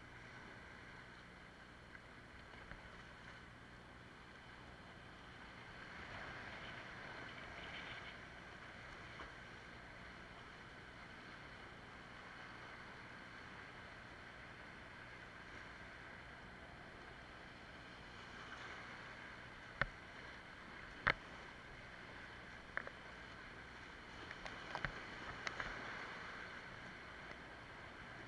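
Faint, steady rush of whitewater rapids around a kayak. About two-thirds of the way through come a few sharp knocks.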